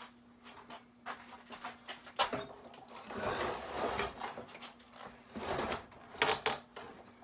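Knocks, clatters and scraping as a small ATV is shifted about on a workbench, with a sharp knock about two seconds in, a longer scrape around the middle and a couple of loud clatters near the end.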